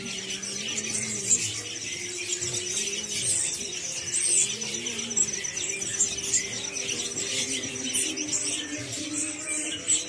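Many caged songbirds chirping and calling at once, one of them keeping up a rapid high trill throughout, with music playing underneath.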